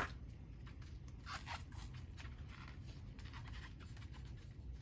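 Faint, scattered crinkling and scraping of aluminum HVAC tape being handled while wrapping an exhaust baffle, opening with a sharp click.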